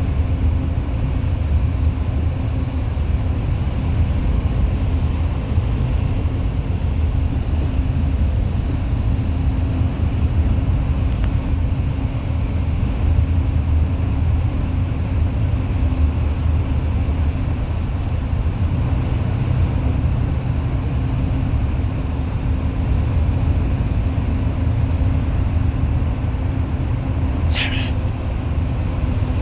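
Bus running on the road: a steady low rumble of engine and road noise with a faint steady hum, and one brief high squeal near the end.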